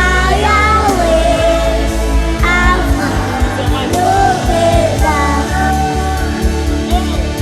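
Live gospel worship music: a band with a steady bass line and drums accompanying sung vocal phrases.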